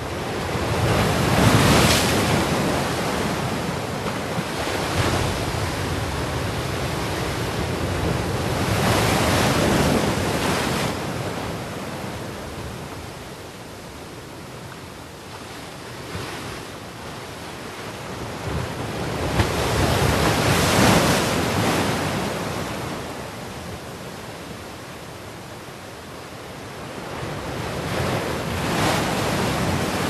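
Storm surf: heavy waves breaking and crashing, the noise swelling and ebbing in four big surges roughly eight to ten seconds apart, with wind buffeting the microphone.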